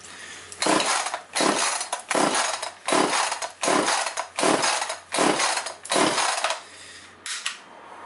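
Two-stroke chainsaw's recoil starter pulled about eight times in a steady rhythm, each pull a short rasping whirr, without the engine catching. The owner puts the failure to start down to bad, stale fuel.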